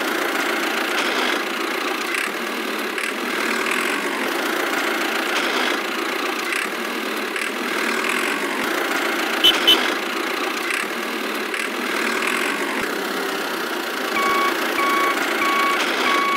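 Tractor engine running steadily at idle-like speed. A reversing beeper sounds a few evenly spaced beeps near the end.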